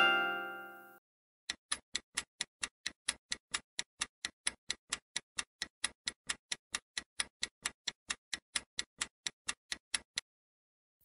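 Clock-like ticking sound effect of a quiz countdown timer, a steady run of short ticks about four or five a second that stops shortly before the end. In the first second the ringing of a bright multi-note chime fades out.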